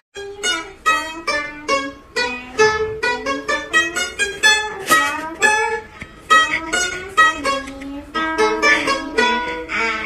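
A round-bodied Chinese plucked lute playing a melody of quick plucked notes, several a second, each ringing briefly.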